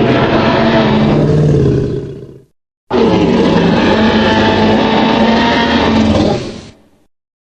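Jurassic Park Tyrannosaurus rex roar sound effect, heard twice: the first roar tails off about two seconds in, and after a short silence a second, longer roar of about four seconds dies away near the end.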